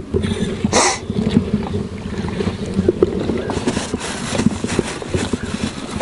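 Landing net being brought in over an inflatable boat: a short rushing splash just under a second in, then irregular knocks and rubbing as the net and its catch are handled on the boat floor, over steady low wind rumble on the microphone.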